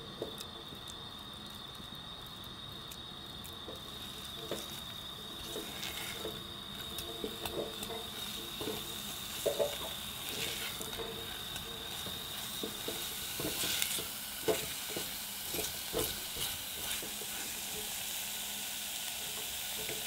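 Silicone spatula stirring and pressing thick choux paste in a saucepan, with irregular soft scrapes and knocks against the pot, over a faint steady sizzle as the dough is cooked on low heat to dry it out. A thin steady high whine runs under it.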